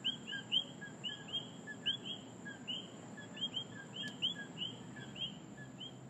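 A chorus of coquí frogs: many overlapping two-note 'co-kee' calls, each a short lower note followed by a rising higher chirp, several a second, over a steady high insect drone. The whole chorus slowly fades.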